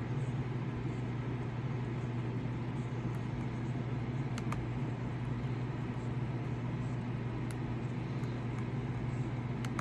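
Steady low hum with even background noise, unchanging throughout, with a couple of faint ticks.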